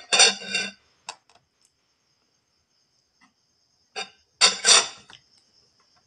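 Close-up eating sounds from a meal eaten by hand off a ceramic plate: two short, loud clusters of clicks and rustles, one at the start and one about four and a half seconds in, with a few single clicks between.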